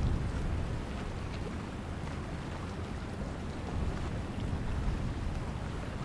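Steady outdoor ambience: a low rumble under an even hiss, with no distinct event, typical of wind and water at a waterside.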